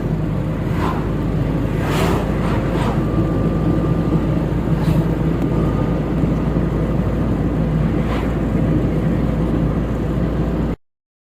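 Moving vehicle's steady low rumble, with a few sharp clicks or knocks in the first half; it cuts off abruptly near the end.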